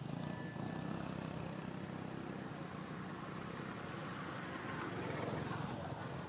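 Steady low rumble of a motor vehicle's engine, swelling slightly about five seconds in.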